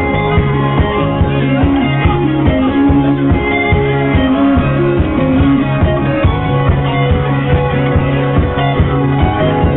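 A rock band playing, with guitars over a steady drum beat.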